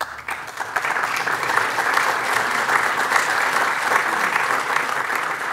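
Audience applauding: a dense clatter of many hands clapping that breaks out suddenly and holds steady.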